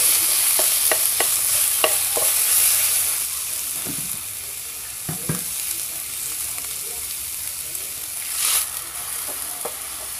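Marinated chicken tenderloin sizzling in hot oil in a frying pan, just tipped in and stir-fried with a spatula that scrapes and taps against the pan now and then. The sizzle is loudest over the first few seconds, then settles, with a brief louder swell near the end.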